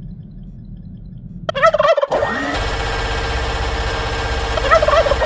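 A turkey gobbles, then a long burst of rapid gunfire starts about two seconds in and runs steadily for about four seconds before winding down. The turkey gobbles again near the end.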